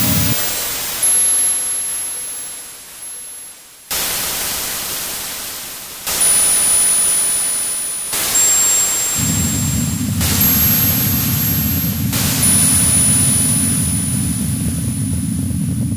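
Electronic noise music: a wash of static hiss that cuts in abruptly every two seconds or so and fades after each start, with thin high whistling tones on top. About nine seconds in, a dense low rumbling noise joins and holds steady.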